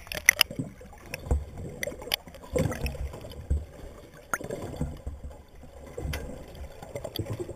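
Seawater sloshing and gurgling around a camera held at and just below the surface, muffled underwater, with irregular low thumps and scattered sharp clicks.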